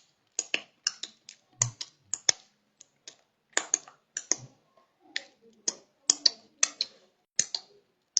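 Irregular light clicks and taps, two or three a second, with no speech.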